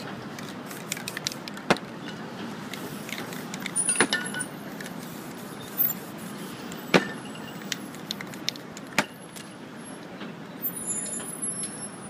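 Steady city-street traffic noise with scattered sharp clicks and knocks, about five loud ones and many faint ones, from spray-paint cans and paper being handled on a metal folding table. Brief high squeaks come near the end.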